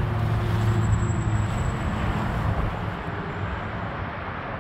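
Low engine rumble with a steady hum, strongest for about the first two and a half seconds, then fading.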